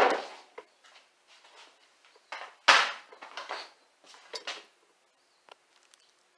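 A series of light knocks and scrapes from pieces of polypropylene honeycomb core being handled and set down on a wooden workbench, the loudest about two and a half seconds in.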